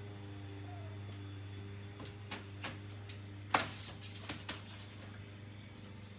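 A steady low hum runs throughout, with a few light clicks or knocks, the loudest about three and a half seconds in.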